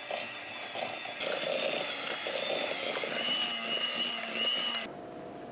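Electric hand mixer running, its beaters creaming butter in a plastic bowl, with a steady high motor whine that cuts off near the end.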